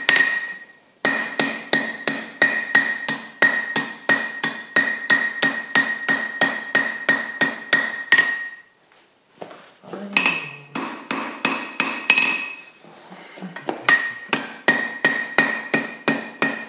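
Hand hammer striking a hot steel ring over the anvil horn to bend it round, about three blows a second, each leaving a high ringing tone from the anvil. The hammering breaks off briefly about a second in and again for a second or two past the middle.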